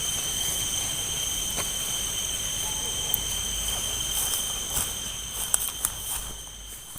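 Night insects, crickets, trilling steadily in a constant high-pitched chorus, with a few scattered sharp clicks through the middle and a fade near the end.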